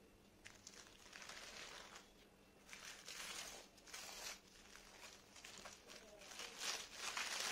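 Thin plastic and paper lining crinkling and rustling as hands peel it off a cake, in irregular bursts that grow louder near the end.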